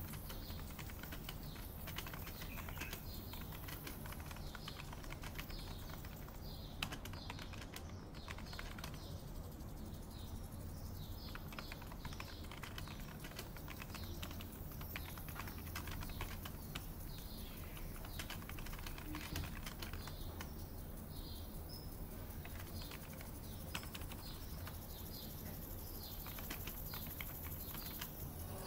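Computer keyboard typing, a continuous patter of key clicks, with birds chirping in short repeated calls over a steady low hum.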